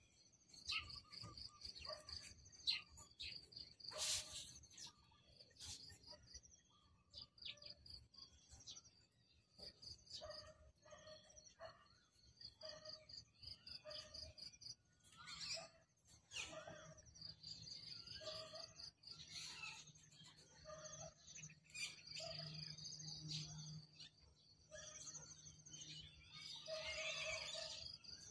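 Faint wild birdsong: many small birds chirping, with quick trains of short high chirps and scattered lower calls. A single sharp click about four seconds in.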